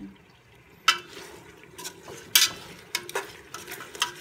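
Chicken pieces being stirred in an aluminium pressure-cooker pot, the utensil knocking and scraping sharply against the metal side about five times after a quiet first second, over a faint frying sizzle.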